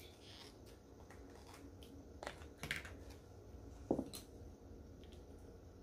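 Quiet, scattered clicks and taps of small plastic food containers and utensils being handled while wasabi is added to soy sauce, with a few sharper taps about two and a half and four seconds in.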